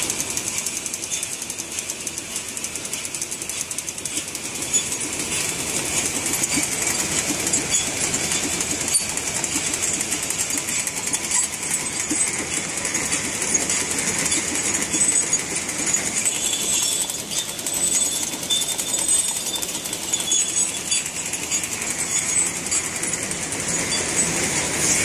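Automatic tableware feeding and wrapping machine running, a steady, fast mechanical clatter.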